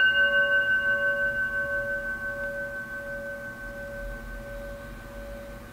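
A metal singing bowl rings out after a mallet strike, a sustained ringing tone with a higher overtone that slowly fades. Its loudness wavers in a steady, gentle pulse.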